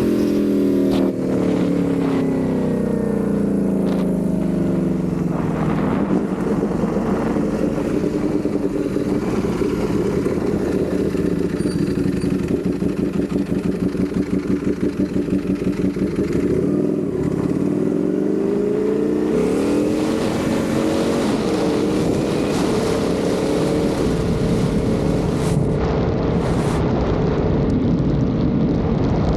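Ducati Panigale V4 motorcycle's V4 engine on the road: the revs fall over the first six seconds as the bike slows, run low with a pulsing beat for about ten seconds, then climb again as it accelerates and hold steady near the end.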